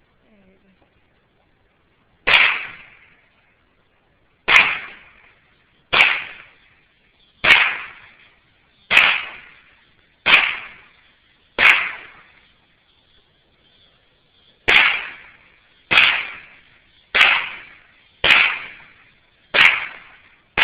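Mossberg 715T semi-automatic .22 LR rifle firing about a dozen single shots, roughly one every one to two seconds with a pause of about three seconds midway. Each report is sharp and dies away over about a second.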